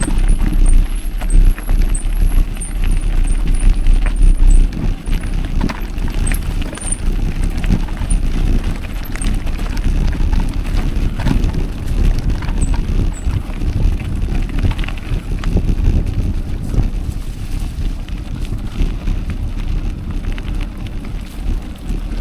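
Running footsteps on a trail, with wind rumbling on the microphone, heaviest for the first few seconds. Faint bird chirps sound in the first few seconds.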